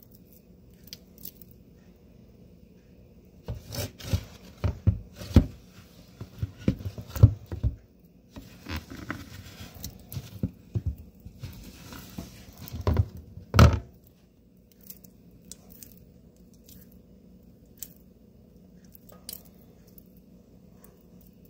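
A hand squeezing and punching a thick cornstarch-and-water slurry (oobleck) in a plastic bowl: irregular wet squelches and slaps, busiest for about ten seconds in the middle, with the sharpest slap just before they stop, then only a few faint ticks.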